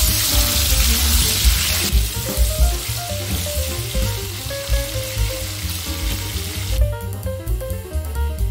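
Gizzards sizzling in hot oil in a wok as they are stirred. The sizzle is loudest in the first couple of seconds and cuts off about seven seconds in. Background music with a steady beat plays throughout.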